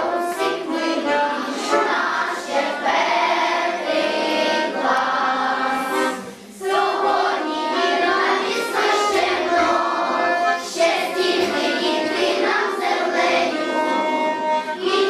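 A group of children singing a song together over an instrumental backing, with a brief drop in the music about six and a half seconds in.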